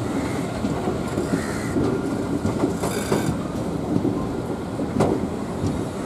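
Passenger train coaches rolling through station-yard points and crossings: a steady wheel-on-rail rumble with irregular clacks over joints and crossings, and one sharp clack about five seconds in.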